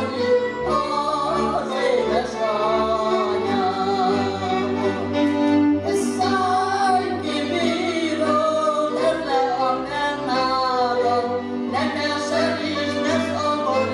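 An elderly woman singing a Hungarian folk song, accompanied by a folk string band of fiddles and double bass.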